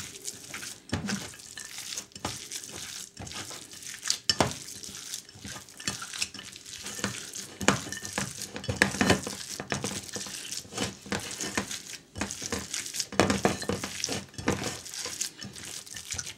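Hands kneading and squeezing raw ground-meat mixture with rice and yellow peas in a ceramic bowl: irregular wet squishing with scattered knocks of fingers against the bowl.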